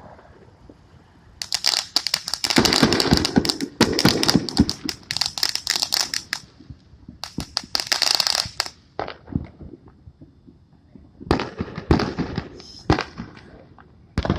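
Fireworks going off in rapid runs of sharp crackling pops: two long dense bursts, a sparser patch, another burst later on, and one last crack near the end.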